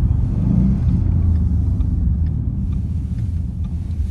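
Ford Mustang driving, its engine and road noise a steady low rumble heard inside the cabin.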